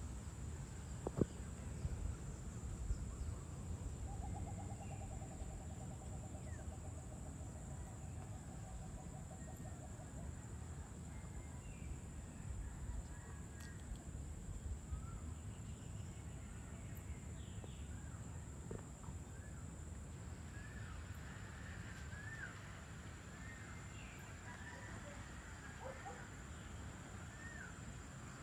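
Evening outdoor ambience: a steady high-pitched insect drone over a low rumble, with a rapid trill from about four to ten seconds in, and a run of short chirping bird calls in the last third.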